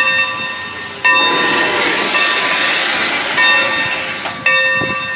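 Santa Fe 2926 steam locomotive's bell ringing at about one clang a second over a steady loud hiss of venting steam.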